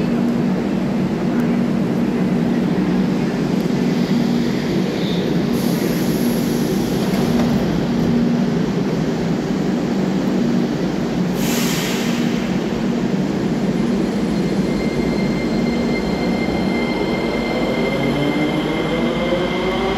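A metro train stands at the platform with a steady hum from its equipment and two short hisses partway through. In the last few seconds it pulls away, its traction motors giving a rising whine.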